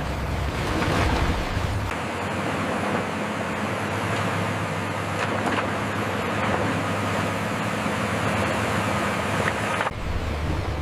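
Heavy earthmoving machinery running: a steady, noisy engine drone. The deep low rumble cuts out abruptly about two seconds in and comes back abruptly near the end.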